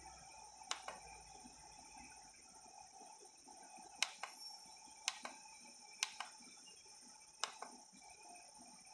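Keypad buttons on a handheld video borescope clicking in pairs, press and release, five times over a faint steady hiss.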